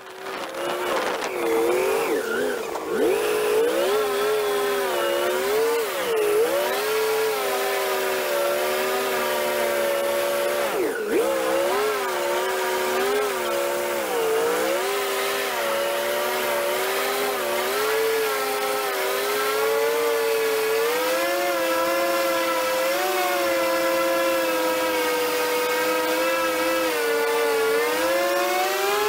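Airboat's engine and air propeller running at speed: a loud, high drone that cuts in at once and wavers up and down in pitch, climbing again near the end.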